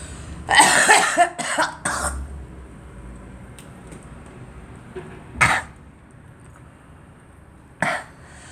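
A girl coughing: a quick run of three coughs about half a second in, then two single coughs a couple of seconds apart later on.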